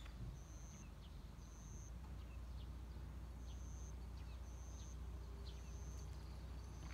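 A high, even-pitched call in short notes, repeated about once a second with a pause near the middle, over a low steady rumble.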